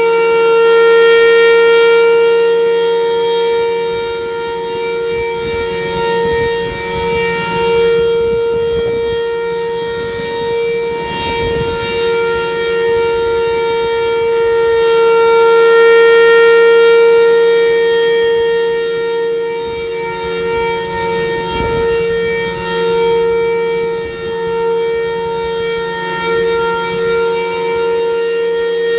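Federal Signal Thunderbolt civil defense siren sounding a steady, single-pitched wail at full speed during its test. Its loudness swells and fades about every fifteen seconds as the rotating siren head turns.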